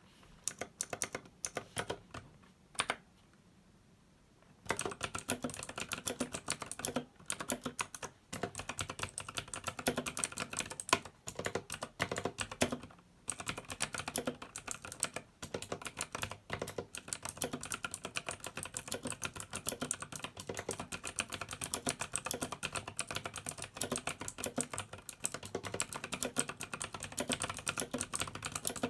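Typing on a Razer BlackWidow Elite mechanical keyboard with clicky, tactile Razer Green switches. A few scattered keystrokes come first, then from about five seconds in a fast, continuous run of typing with a few short pauses.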